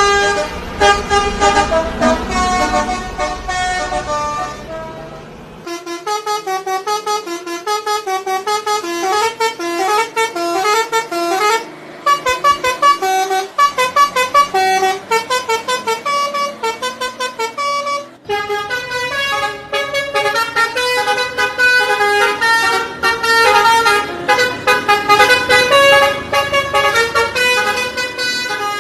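Basuri telolet horn, a multi-tone bus horn, playing quick tunes of short toots at changing pitches. A low engine rumble runs under it for the first five seconds or so.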